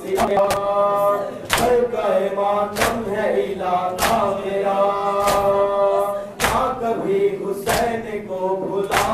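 Male voices chanting a nauha, a Shia mourning lament, in a slow repeated melody, over loud regular slaps of matam, hands beating on chests, about one every second and a quarter.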